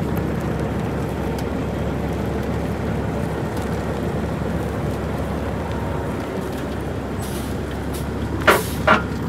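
Heavy-duty tow truck's diesel engine running steadily as it pulls the towed bus forward, with two short loud hisses of air from its air brakes near the end.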